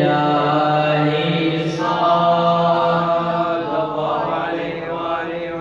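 A man's voice chanting Arabic religious narrative in a drawn-out, melismatic style through a microphone, holding long notes that shift slowly in pitch.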